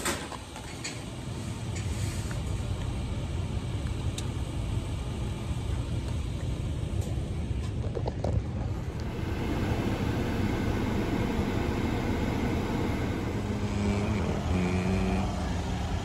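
Wire shopping cart rolling over pavement, its wheels and metal basket rattling in a continuous rumble that gets louder about halfway through.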